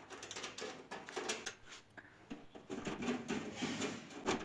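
Screws being undone from a desktop PC cabinet: a run of small scraping and clicking sounds, metal on metal.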